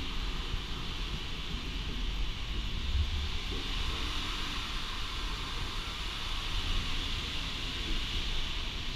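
Steam hissing steadily at the Waddon stationary steam engine as it is being started, over a low rumble; the hiss grows stronger about a second in.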